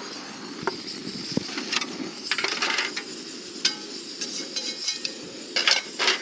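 Light clinks and clatters of cookware being handled, several short strikes scattered through, the loudest near the end, over the steady low rush of a freshly lit butane camp stove burning.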